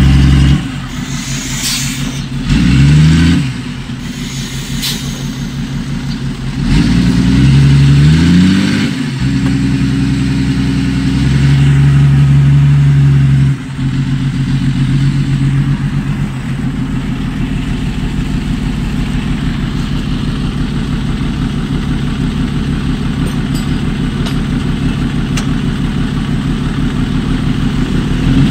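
Diesel engine of heavy construction machinery running under load. It revs up and down twice in the first third, holds a loud steady rev that drops off sharply about halfway, then runs steadily.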